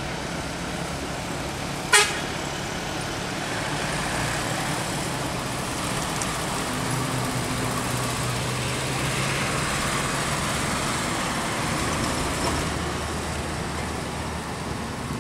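Diesel engine of a large intercity bus running as it drives down a winding mountain road. The steady low hum swells a little through the middle, with a single sharp click about two seconds in.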